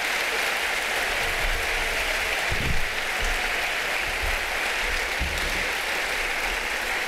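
Large audience applauding steadily, clapping in recognition of people who have stood up. A brief low thump about two and a half seconds in.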